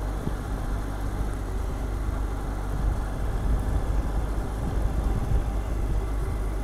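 Motorcycle riding at a steady speed: engine and wind noise heard from the rider's position as a steady low rumble.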